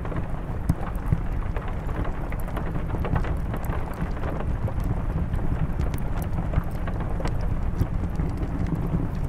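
Steady rain on a window with a low rumble, mixed with a fireplace crackling in frequent, irregular sharp pops and snaps.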